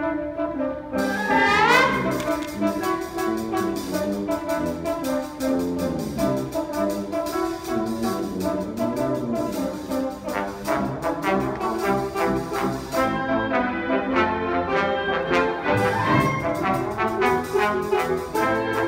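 Wind band playing with a solo trombone in a busy passage: quick rising runs about a second in, sustained brass and woodwind chords, and percussion strokes throughout.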